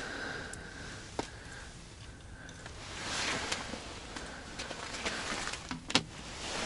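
Rustling of winter clothing and gear handling inside an ice-fishing tent, with a few small clicks. A sharp knock about six seconds in comes as a metal thermos is picked up from the folding table.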